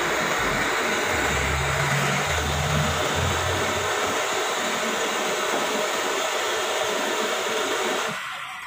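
Blowtorch flame burning with a steady rushing hiss while it heats copper soldering irons for radiator soldering. The hiss dies down near the end.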